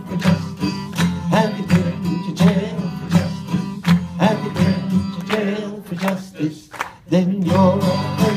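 Folk song: an acoustic guitar strummed in a steady rhythm with a man singing, dipping briefly about seven seconds in before the strumming picks up again.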